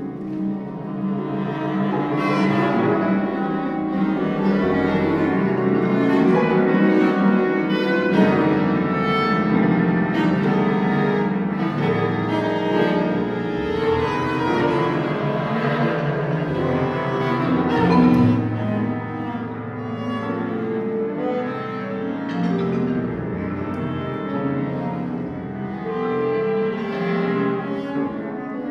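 An orchestra playing contemporary concert music. Bowed cellos and double basses hold low notes in a dense, shifting texture, and short sharp attacks cut through it.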